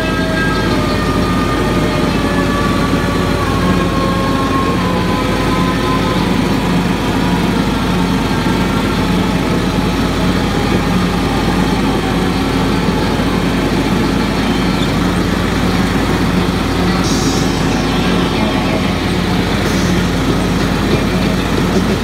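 Riding lawn mower engine running steadily under mowing load.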